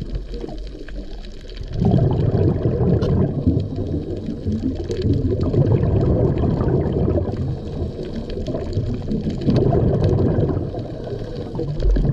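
Muffled underwater water noise picked up by a camera below the surface: a low, churning rumble with faint scattered clicks. It grows louder about two seconds in and eases and swells every few seconds after that.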